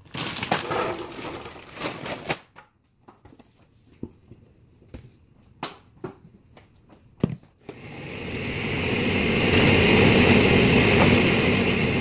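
Crinkling and crackling as pork rinds go into a blender jar, a few clicks and knocks, then near the middle of the clip the countertop blender starts, builds up and runs loud and steady, grinding the pork rinds, Parmesan and spices into crumbs.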